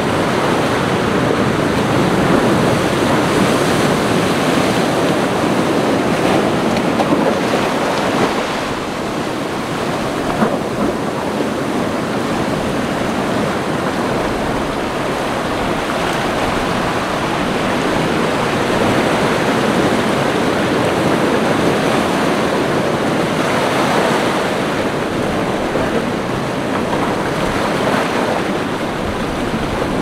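Ocean surf: waves breaking and washing in a continuous rush of noise that slowly swells and eases.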